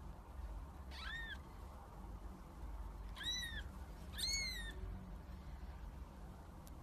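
Very young ginger kitten mewing: three thin, high-pitched mews, the first about a second in and two more close together a little past the middle, over a faint low hum.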